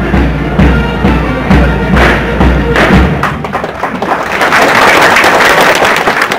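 Marching band music with a steady bass-drum beat about twice a second; the drum stops about three seconds in, and a loud, even hissing noise follows.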